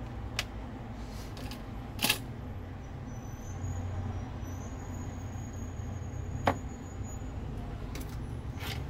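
Steady low background hum with four short, sharp clicks or taps spread through it. The loudest comes about two seconds in, another about six and a half seconds in, and a softer one falls near the end.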